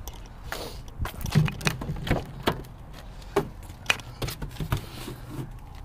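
Irregular footsteps on asphalt mixed with short clicks and knocks from handling as the rear door of a BMW X5 is opened.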